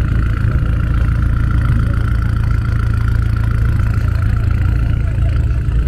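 An engine running steadily: a low rumble under a constant high-pitched hum.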